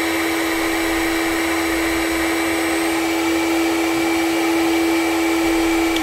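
Electric heat gun running steadily, a constant whirring hum over a rush of hot air, as it shrinks down a heat-shrink butt connector.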